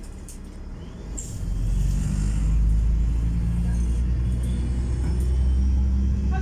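Underfloor diesel engine of an LVT/S railbus, heard from inside the passenger compartment. About a second in it throttles up to a loud, steady low drone as the railcar pulls away.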